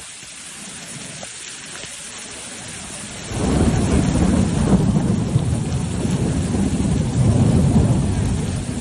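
Steady rain falling. About three seconds in, a loud low rumble of thunder sets in suddenly and keeps rolling over the rain.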